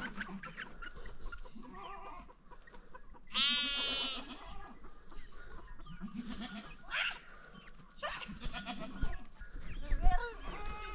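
Goats bleating: one loud, quavering bleat about three seconds in, then several shorter, fainter bleats. A sharp knock near the end.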